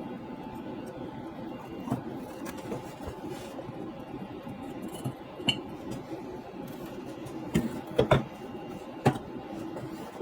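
Sharp metal clinks and knocks over a steady running hum, a few scattered through, the loudest three close together about eight seconds in, as metal tools and scrap are handled around a copper melt.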